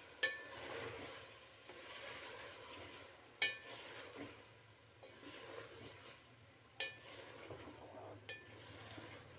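Chicken and mixed vegetables frying in a metal pot while being stirred, with a soft sizzle. Four sharp ringing clinks of the utensil against the pot.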